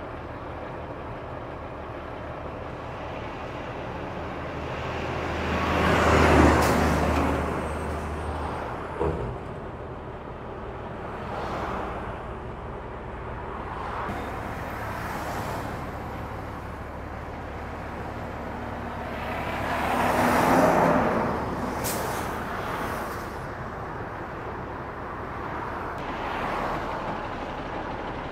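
Heavy trucks running in traffic, with two louder pass-bys that swell and fade, about six and twenty seconds in.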